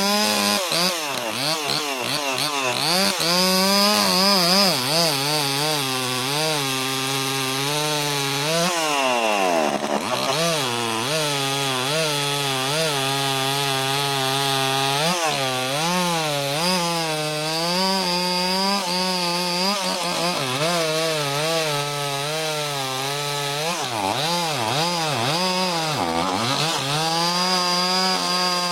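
Gasoline chainsaw running at high speed as it cuts through a tree trunk. The engine pitch wavers as the chain loads in the wood, dropping sharply and recovering about a third of the way in and again near the end.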